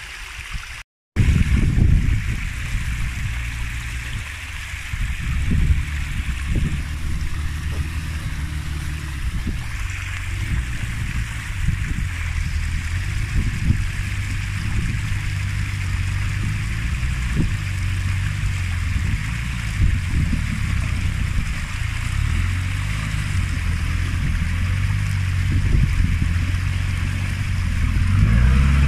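Nissan Patrol off-roader's engine running at low revs as it crawls up a rocky track, with occasional knocks and revs rising near the end.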